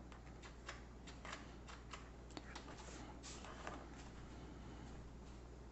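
Felt-tip pen scratching on notebook paper in short, faint strokes as numbers are written.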